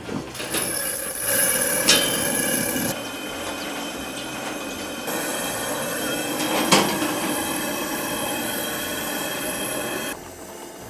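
Coleman 414 Limited two-burner liquid-fuel camp stove burning with a steady hiss and a whistling edge. It is broken by two sharp knocks; the second comes as a cast-iron Dutch oven is set down on the grate.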